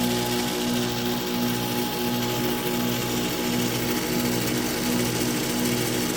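Carrier 4-ton heat pump running, its compressor giving a steady, even hum of several layered tones over a airy whoosh.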